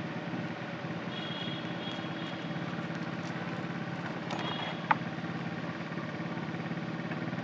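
An engine idling steadily, with a single sharp click about five seconds in.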